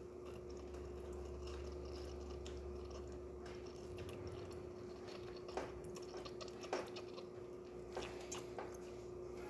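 Breville espresso machine heating its thermoblock for steaming: a low steady hum, stronger for the first few seconds, with a few faint clicks from about five seconds in.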